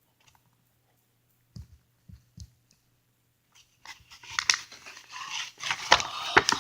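A few soft handling knocks, then from about four seconds in, plastic packaging rustling and crinkling, growing louder, as a squishy toy is taken out of it.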